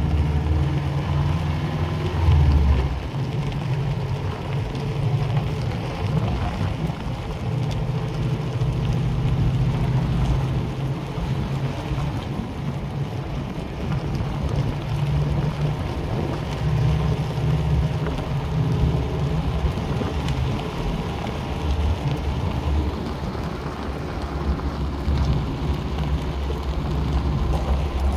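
1986 Subaru Brat's flat-four engine running at low road speed, a steady low rumble, with the tyres crackling and crunching over a gravel road, heard from inside the cab.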